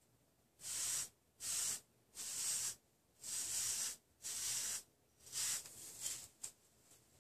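Wave brush swept through short, wolfed 360-wave hair: a series of about seven brisk, hissing bristle strokes, each under a second long, coming a little quicker near the end.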